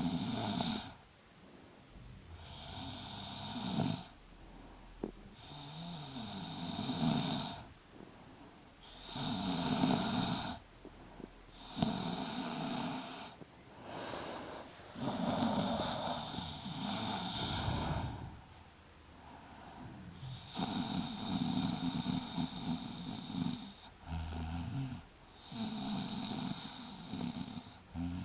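A pregnant woman snoring in her sleep: about ten loud snoring breaths, one every two to three seconds, with short quiet pauses between them.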